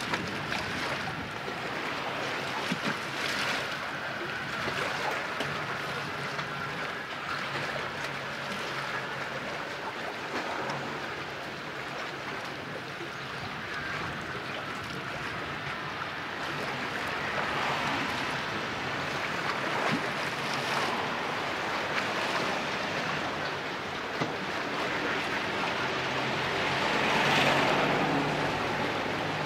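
Seaside ambience of wind and small waves washing, an even hiss that swells briefly near the end, with a faint low hum underneath.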